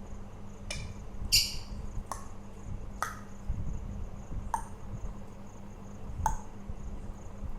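A pet parakeet making six short, sharp high chirps, each dropping quickly in pitch and spaced irregularly, the loudest about a second and a half in. A steady faint high tone runs underneath.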